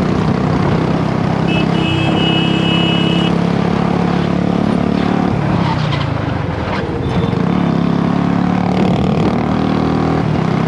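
Royal Enfield Bullet 350's single-cylinder engine running hard at speed on board, with wind rushing over the microphone. The engine note dips briefly about six and a half seconds in, then picks back up. A high steady tone sounds for about two seconds near the start.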